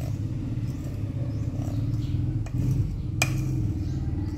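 A steady low hum with a few light clinks of kitchenware, the sharpest about three seconds in, as batter is tipped from a mixing bowl into a metal baking pan with a whisk in it.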